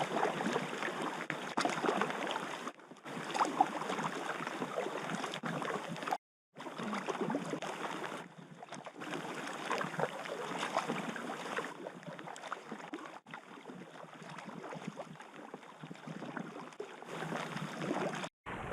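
River water splashing and rushing around an inflatable packraft moving downstream, a steady watery noise with small splashes throughout, broken off briefly twice.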